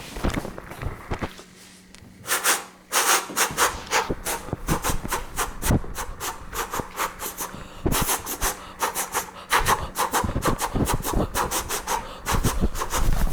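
A person making the hissing 'fff' sound over and over, the sound the cat hates: one longer hiss about two seconds in, then many short rapid hisses, several a second.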